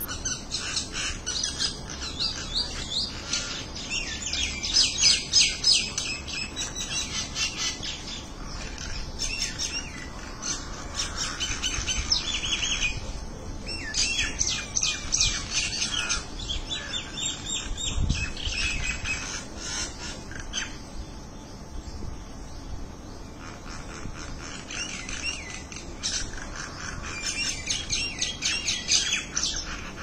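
A small flock of common mynas chattering and squawking, with dense runs of rapid chirps broken by short lulls.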